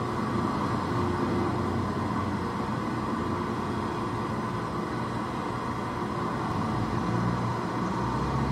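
Steady electronic noise drone from a live electronics setup of amplified objects such as hard drives and radios, with a low hum beneath a band of hiss. The low hum grows stronger near the end.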